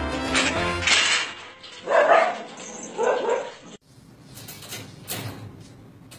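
Background music stops about a second in, then a dog barks twice, a second apart. After a cut, a few light clicks and rattles come from a wire cage door as a cat works at its latch with its teeth.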